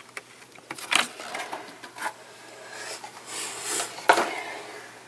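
Plastic toy train pieces and packaging being handled: a few sharp clicks and knocks, with a brief rustle of packaging between them.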